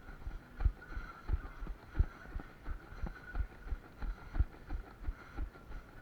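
A runner's footsteps: steady low thuds, about three a second.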